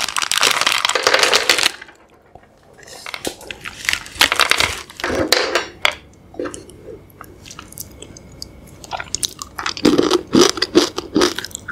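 Close-up crinkling of a plastic candy wrapper for about two seconds, then a run of small clicks and crunches as Delfi Chacha Peanut chocolate-coated candies are handled and bitten, in ASMR style.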